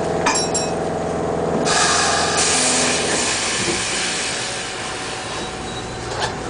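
Classic Blackpool tram heard from aboard: a steady hum, then a loud hiss of air for about a second and a half starting nearly two seconds in. After that a lower running rumble as the tram gets under way.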